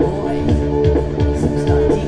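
Music with a steady beat and held chords.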